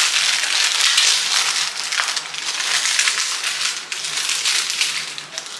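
Plastic bags crinkling and rustling as cookies are packed into a Ziploc bag, a dense continuous crackle that eases off near the end.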